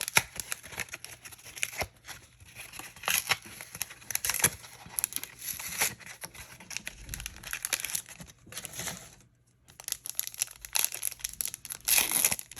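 Foil Yu-Gi-Oh booster pack wrapper being torn open and crinkled in the hands: an uneven run of crackling rips and rustles, with a brief pause about nine seconds in.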